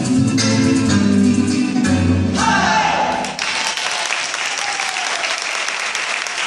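Venezuelan joropo dance music with plucked strings comes to its final note about halfway through. The audience then breaks into applause with a few whoops.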